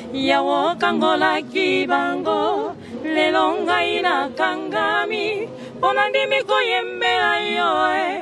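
Voices singing a Christian praise song in harmony without instruments, a melody line moving over a held lower voice.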